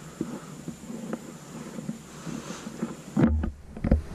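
Handling noise from a hand-held camera carried through a wooden house: soft irregular knocks, then about three seconds in a loud muffled rumble as the microphone is brushed, followed by a couple of thumps.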